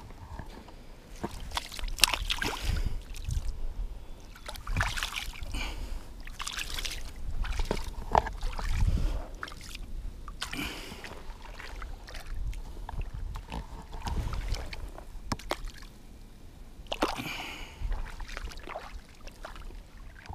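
Shallow water splashing and sloshing in irregular swishes as a wading angler lowers a flathead into the water to release it and walks on through the shallows.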